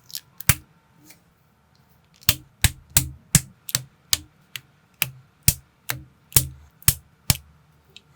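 Plastic building-block pieces clicking as they are snapped together: one click near the start, then a run of about a dozen sharp clicks, roughly two or three a second, from about two seconds in.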